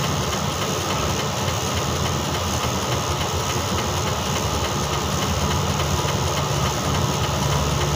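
Truck engine idling steadily, a constant low hum heard from inside the cab.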